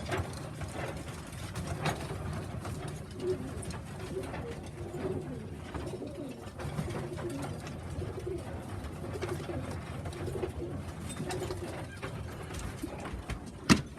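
Racing pigeons cooing in a loft, with scattered light clicks and one sharp knock near the end.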